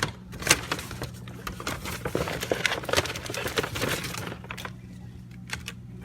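Food packaging crinkling and rustling with light knocks as ingredients are handled and taken out of a meal-kit bag. The sound is dense for about four seconds, then thins to a few scattered clicks.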